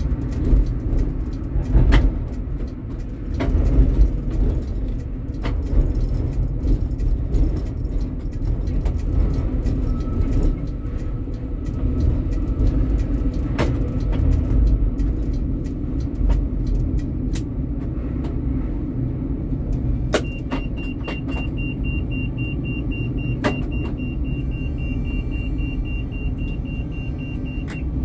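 Helsinki tram running along its line: a steady low rumble with scattered sharp clicks and knocks. About two-thirds of the way in, a high, rapidly pulsing beep starts and runs until just before the end.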